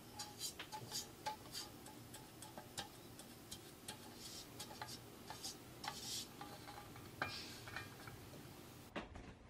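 Pastry brush dabbing and spreading soft butter inside a fluted metal tart tin: faint repeated clicks and taps against the metal, with a few short brushing swishes.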